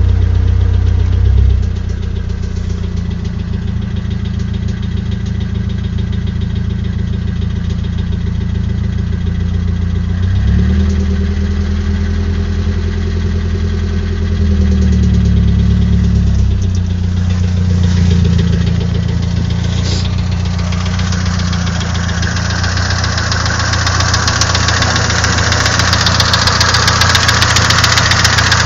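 Nissan SR20DET 2.0-litre turbocharged four-cylinder engine idling with a knocking sound, its speed rising briefly about a third of the way in. A hiss builds up over the second half and grows louder toward the end.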